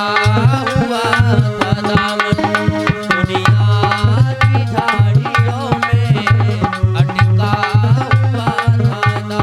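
Instrumental passage of devotional bhajan music: tabla playing a quick, busy rhythm with deep bass strokes under a held melody.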